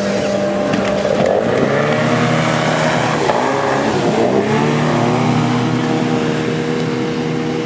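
Outboard motor of a racing power dinghy running hard through white-water rapids, its pitch dipping and rising twice as the boat passes close and pulls away, over the rush of the rapids.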